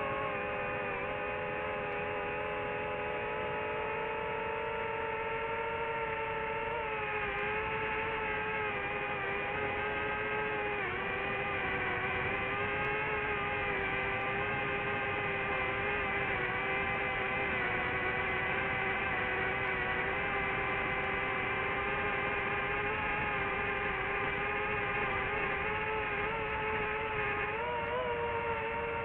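FPV quadcopter's electric motors and propellers whining steadily, the pitch dipping a little a couple of times and rising near the end.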